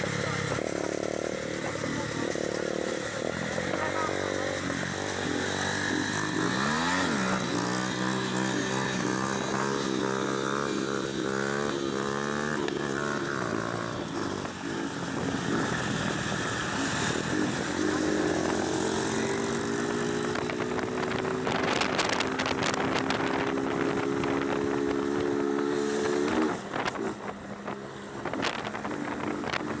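Honda CB300's single-cylinder engine under way on the road. It revs up quickly about seven seconds in, later pulls with a slowly rising pitch, then the throttle closes sharply near the end.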